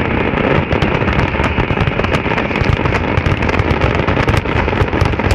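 Fireworks display going off in a dense, continuous barrage: rapid overlapping bangs and crackles with no pause.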